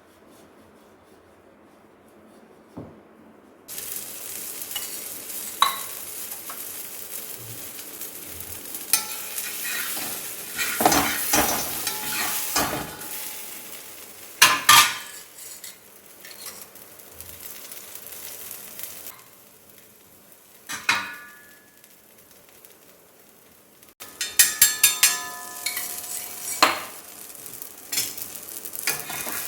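Paneer paratha cooking on a hot dosa griddle: a steady sizzle starting about four seconds in, with a spatula scraping and tapping on the pan now and then.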